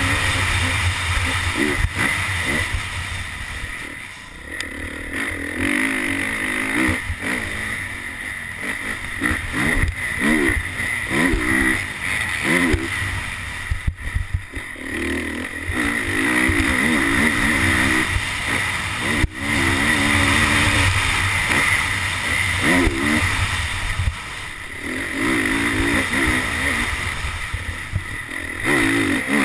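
Honda CRF450R's single-cylinder four-stroke engine revving up and down over and over as the motocross bike is ridden hard around a dirt track, the revs dropping away briefly several times as the throttle is shut.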